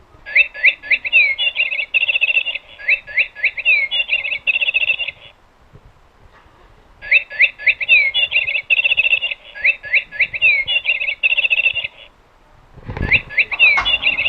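Electronic bird-song sounder playing the same recorded phrase of falling chirps and trills over and over, twice in each of three bursts separated by short pauses; the speaker takes it to be set off by a motion detector. A thump sounds just before the third burst.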